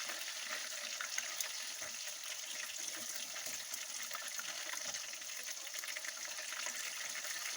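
Food frying in hot oil in a pan: a steady sizzle with small crackles and pops.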